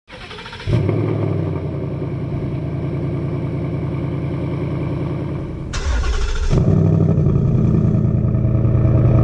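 V8 car engine starting up just under a second in, then running steadily through its exhaust. The sound changes abruptly twice near the end, the second time to a deeper, louder note.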